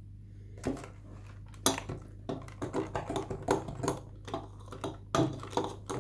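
Hand-mixer beaters knocking and clinking against a glass mixing bowl as flour is worked into cake batter, irregular strikes about two a second.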